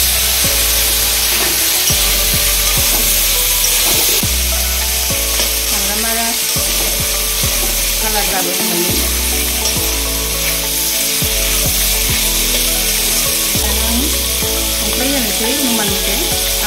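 Chicken pieces sizzling as they fry in a steel wok, with a metal spatula stirring and scraping them against the pan.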